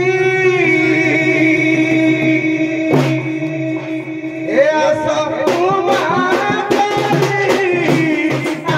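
Live Odia Danda Nacha folk music: a male voice singing over a steady held note, with a sharp click about three seconds in. Singing picks up again and quick hand-drum strokes join in from about halfway through.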